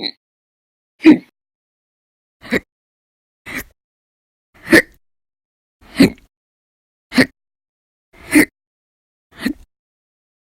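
A person's loud hiccups, about nine in a row, coming regularly at roughly one every 1.2 seconds. They are part of a persistent bout of hiccups that lasts for hours.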